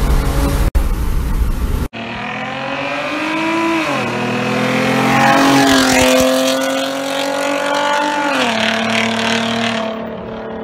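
Hyundai Genesis Coupe 3.8 V6 exhaust. For about two seconds it is a deep, steady drone heard inside the cabin. Then, heard from outside, the car accelerates away: its pitch climbs, drops sharply twice at gear changes (about 4 s and 8.5 s in), and fades near the end.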